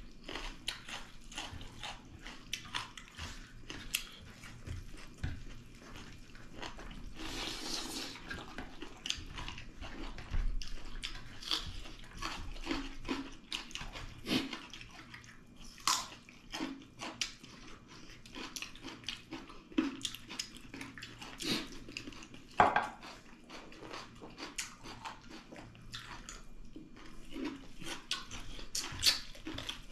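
Two people eating rice and pork-leg dal with their hands off steel plates: wet chewing and lip smacking, with irregular small clicks and scrapes from fingers in the food.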